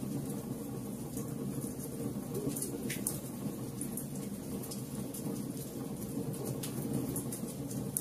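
Wood fire burning in a fireplace: a steady low rush of flames with sharp crackles and pops of the burning logs scattered throughout, the clearest pop about three seconds in.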